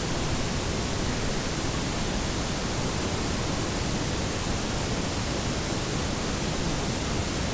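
Steady, even rushing noise of water moving past the boat's bow, heard close on a bow-mounted camera's microphone, with no distinct splashes or strokes.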